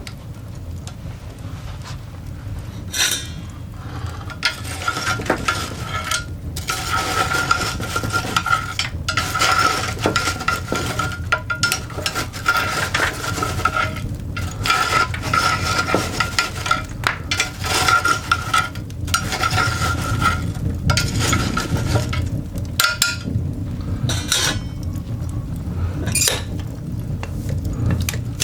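Coal fire burning in a cast iron dog grate, crackling and popping with dense irregular snaps. A thin steady whistle runs through the middle and stops about two thirds of the way through.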